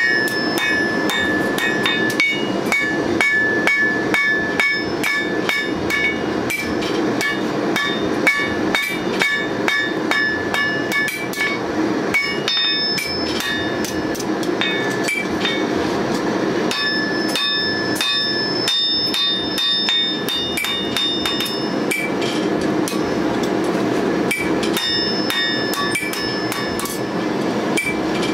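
Blacksmith's hand hammer beating red-hot steel held in tongs on an anvil, forging a scissors blade: a fast, steady run of blows, each with a ringing metallic tone.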